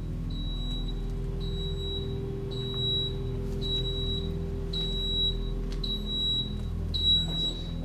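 Fire alarm panel's electronic trouble beeper sounding short, high beeps about once a second, evenly spaced; the panel is signalling a trouble condition, loss of AC power.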